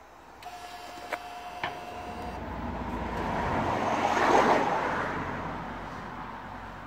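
A vehicle passing by: a rushing sound that builds to a peak a little past the middle and then fades away. Before it, a short steady whine with two sharp clicks.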